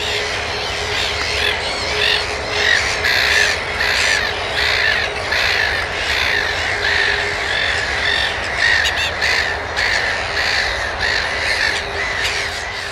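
Black-headed gull colony: many gulls calling over one another without a break.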